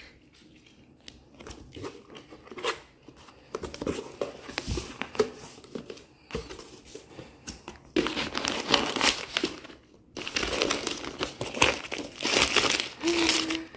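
Packaging being crinkled and torn open by hand. Scattered handling clicks give way, about two-thirds through, to dense, loud rustling that stops briefly and then resumes.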